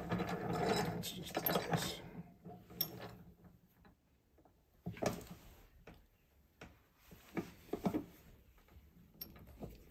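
A cast-iron bench vise being tightened on a small steel lock cam to clamp it for bending. A rattling stretch of mechanical sound for about the first two seconds, then a scattering of sharp metal clicks and knocks as the handle is worked.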